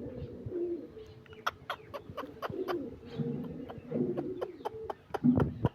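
Pigeons cooing in low, repeated phrases, with many sharp, irregular ticks from about a second in.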